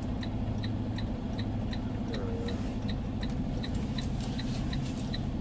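Semi-truck cab's indicator flasher clicking in an even rhythm, about two to three clicks a second, over the steady low hum of the diesel engine.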